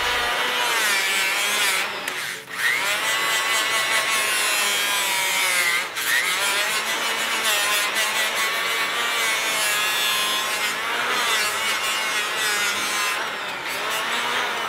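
Handheld power grinding tool working on the cut throttle body, cleaning up its inside before welding, with a continuous abrasive whine whose pitch wavers as it is pressed on. It pauses briefly twice, about two and a half and six seconds in.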